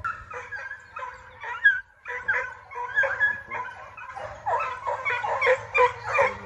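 A pack of young foxhounds baying on a running trail, with many short, overlapping cries that come thicker and louder toward the end as the chase nears.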